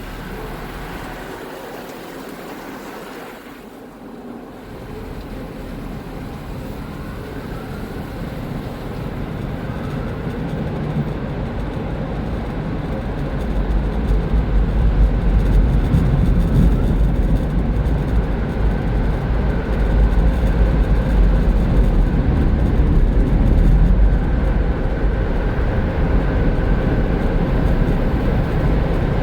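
Low, steady vehicle rumble that grows louder over the first dozen or so seconds, then holds loud and even.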